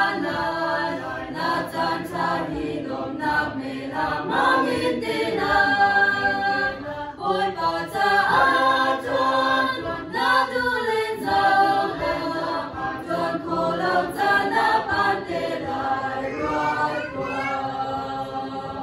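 Small church choir of young male and female voices singing a hymn together.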